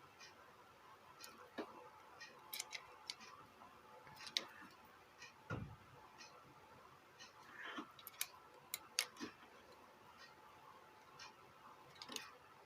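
Faint, scattered clicks and light taps of small parts and wires being handled on a bench, with a soft low thump about five and a half seconds in.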